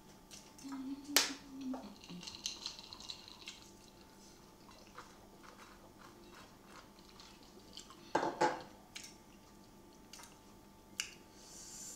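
Eating noodles at a table: scattered clicks and knocks of a fork and glassware against a bowl and stone counter, mixed with short slurps and a brief hum from the eater about a second in. The loudest knock comes a little after eight seconds.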